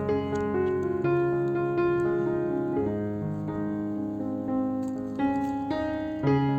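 Background piano music with slow, held chords.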